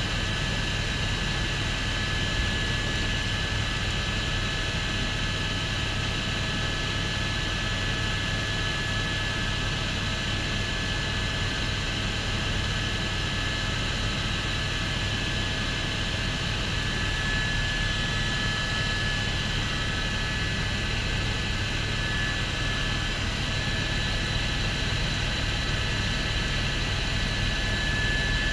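Helicopter in flight heard from inside the cabin: a steady low drone from the rotor and engine, with a constant high whine above it.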